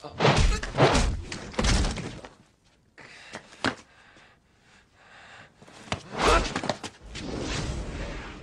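Film fight sound: a run of heavy thuds and crashes in the first two seconds, a single sharp hit near the middle, and another cluster of crashing impacts about six seconds in.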